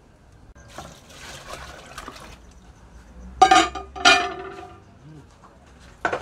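A spoon stirring liquid in a large aluminium cooking pot on a fire, scraping the metal twice with a loud ringing tone. A short sharp knock near the end.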